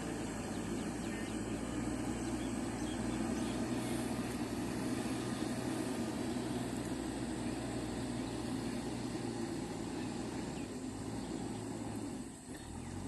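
JCB 3DX backhoe loader's diesel engine running steadily at work, with a brief dip in level near the end.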